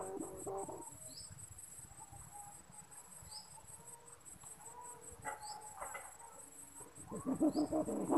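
Kite hummer (sanu) with a plastic packing-strap ribbon, humming faintly and in broken snatches of wavering pitch, growing louder again near the end. A short rising high chirp repeats about every two seconds.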